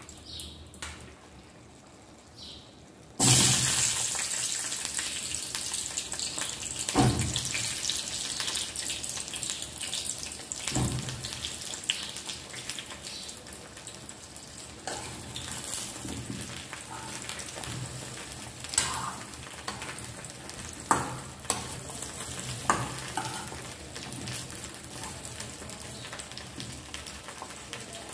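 Food dropped into hot oil in a pan starts sizzling suddenly and loudly about three seconds in, then keeps frying steadily, with a few sharp knocks as it is stirred.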